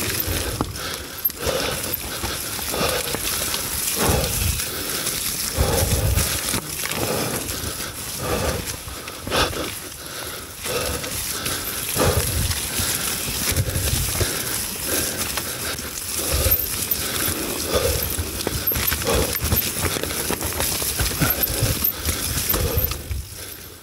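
Mountain bike riding down a wet, muddy trail: tyres rolling and slipping through mud, with irregular knocks and rattles from the bike over rough ground.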